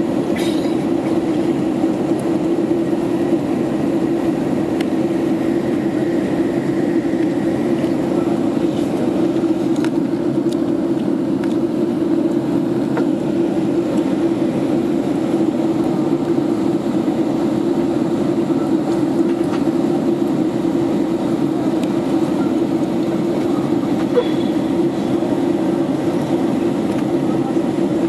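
Boeing 767 cabin noise on descent: a steady roar of jet engines and airflow past the fuselage, with a strong low hum, unchanging throughout.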